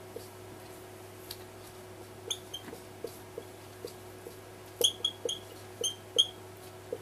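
Marker pen squeaking in short, high chirps as it writes on a white board, the squeaks coming thickest about five seconds in, over a low steady hum.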